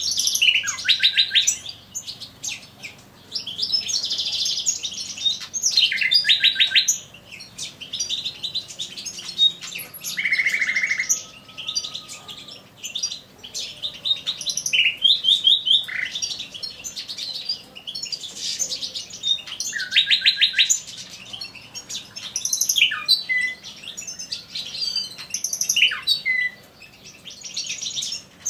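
Male common nightingale singing: a string of song phrases, each a second or two long, built from fast repeated notes and trills with short pauses between them. The loudest parts are rapid rattling runs of notes.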